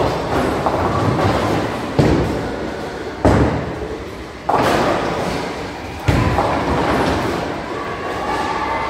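Bowling balls crashing into ten-pins across a bowling alley: about five sudden crashes, each trailing off, over a steady rolling rumble.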